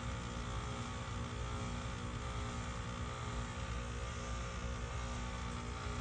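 Outdoor heat pump unit running through its defrost cycle, a steady mechanical hum with no change in level.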